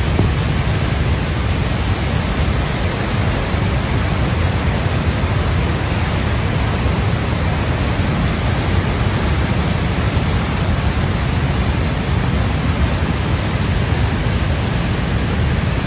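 Floodwater rushing in a steady, loud, unbroken roar, heaviest in the deep low end: a river in spate after a cloudburst.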